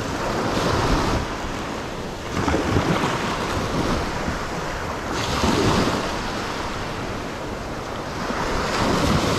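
Small ocean waves breaking and washing up a sandy beach, a steady rush that swells with each wave every few seconds.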